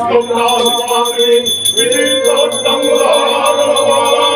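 Puja hand bell rung rapidly and continuously, with a long held tone joining in about two seconds in.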